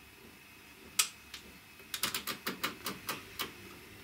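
Clicks of a detented rotary control on a Hewlett-Packard analogue oscilloscope being turned by hand: one click about a second in, then a quick run of about ten clicks.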